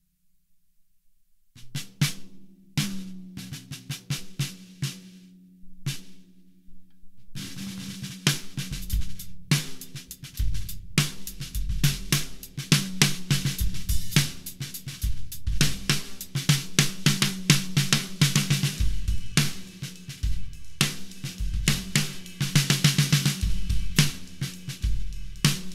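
Deep 14x10 snare drum with a segmented southern yellow pine shell and .45 bullets as air vents, struck with sticks: spaced snare strokes ring with a low pitch. About seven seconds in the rest of the drum kit joins in a groove, with bass drum, hi-hat and cymbals under the snare.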